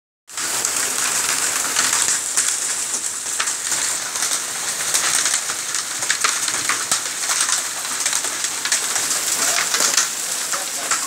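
Hail mixed with heavy rain pelting a road and bare ground: a steady hiss of falling rain, peppered with many sharp ticks of hailstones striking.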